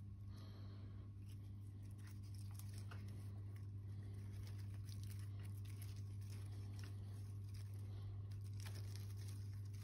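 Faint rustling and light plastic clicks as a mint plant's leaves and roots are handled and pushed into a small plastic net basket, over a steady low hum.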